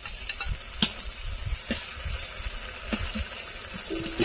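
Spice pastes and onion frying in oil in a steel kadai, a steady sizzle, with a few sharp taps of a steel spatula against the pan.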